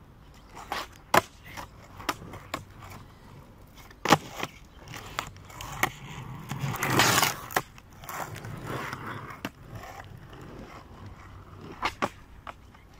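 Skateboard doing freestyle tricks on rough asphalt: a series of sharp clacks as the board hits the pavement, between wheels rolling and grinding over the surface. The rolling is loudest for about a second, around seven seconds in.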